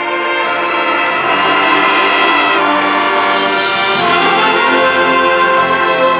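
Marching band brass section playing sustained, loud chords, building in volume in the first second or so, with the low brass entering underneath.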